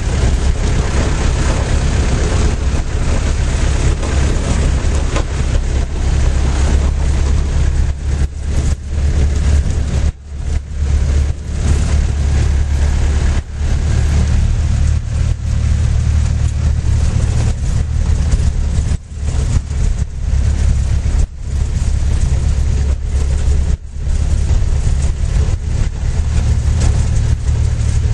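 Engine of a passenger vehicle heard from inside its cabin while driving: a loud, steady low drone, dipping briefly several times after about eight seconds.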